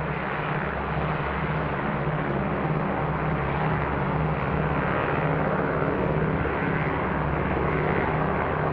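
Piston engines of a propeller aircraft running steadily: a continuous drone with a low hum underneath.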